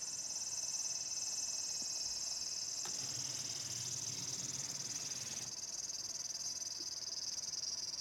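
Steady chorus of crickets chirring, a recorded insect sound effect played back by the diorama. About three seconds in there is a click, then a low rumble for about two and a half seconds before it stops.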